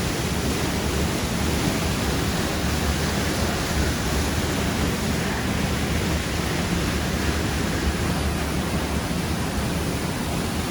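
Waterfall rushing into a pool: a loud, steady roar of falling water.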